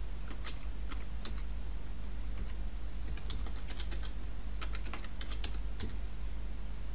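Computer keyboard keys clicking as a word is typed, in irregular little runs of keystrokes with short pauses between them.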